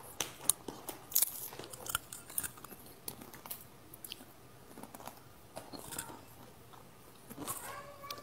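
Crunching and chewing of a small snack close to an earphone microphone: irregular sharp crunches and bites, loudest in the first two seconds.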